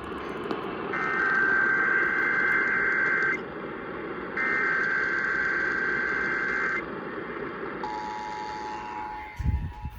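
Emergency Alert System test received over a radio broadcast: two bursts of SAME digital header data tones, each about two and a half seconds long and a second apart, then the two-tone EAS attention signal starting about eight seconds in, all over steady broadcast hiss.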